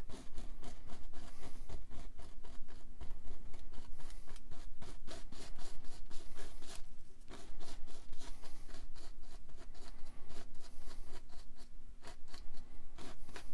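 Fan brush scratching oil paint onto canvas in quick short strokes, many a second, with a brief lull about seven seconds in.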